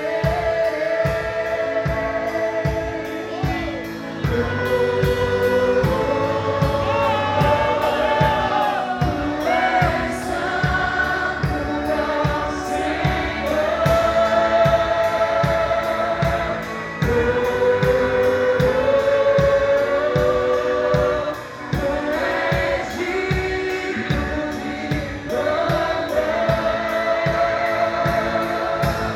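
Live worship band and singers performing a praise song: sung melody with a choir over a steady drum beat.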